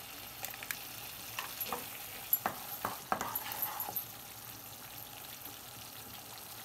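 Thick tomato sauce sizzling gently in a kadai while a wooden spatula stirs and scrapes through it. The spatula makes a few short knocks and scrapes in the first four seconds, then a steady low sizzle carries on.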